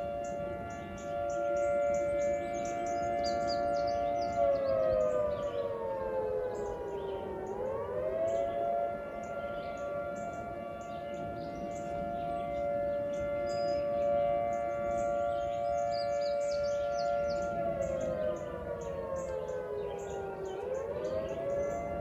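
Federal Signal 2T22 dual-tone tornado siren sounding a steady two-note chord during its monthly test. Twice it sags in pitch over a few seconds and then winds quickly back up to full tone.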